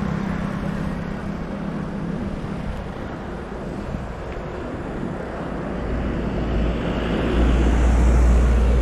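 Wind rushing over the microphone of a camera on a moving bicycle, with road traffic noise. A bus's low engine rumble grows louder in the last few seconds as it approaches.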